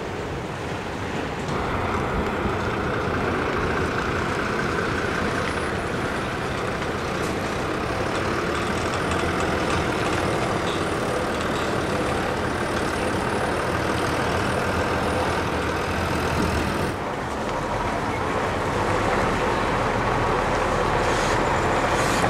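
Semi-trailer lorries and other heavy road vehicles driving past, diesel engines running amid traffic noise.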